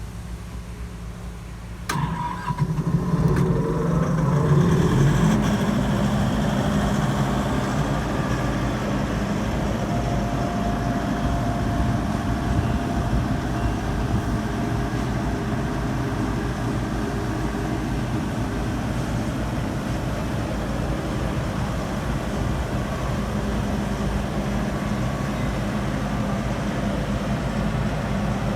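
Diesel engine of a 2014 Airman PDS400S portable air compressor starting with a click about two seconds in. It revs up over the next few seconds, then settles into steady running.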